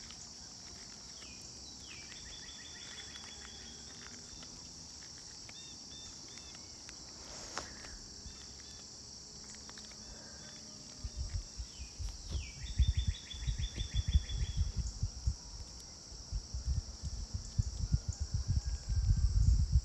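Steady high-pitched chorus of crickets and other insects. A bird sings a few times, each phrase a quick downward sweep into a fast run of repeated notes. From about halfway on, wind buffets the microphone in low, uneven rumbles, the loudest sound near the end.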